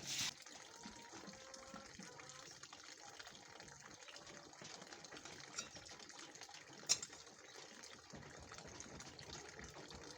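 Near silence: faint background hiss, with one short sharp click about seven seconds in and a softer one shortly before it.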